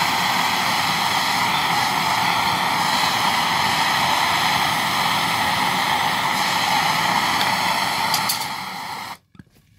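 Handheld gas torch burning steadily, its flame heating a copper fitting to sweat a solder joint. The sound drops about eight seconds in and cuts off abruptly a second later as the torch is shut off.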